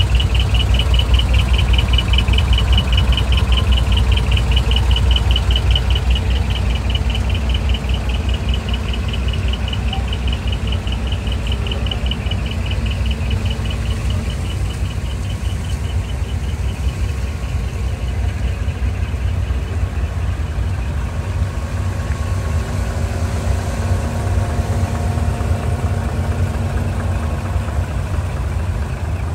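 Large truck engine idling with a steady low rumble. Over the first half a high, rapidly pulsing tone runs alongside it and fades away.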